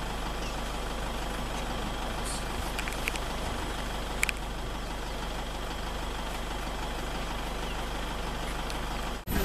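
Safari vehicle's engine idling steadily, with a few short clicks about two to four seconds in; the sound drops out abruptly near the end.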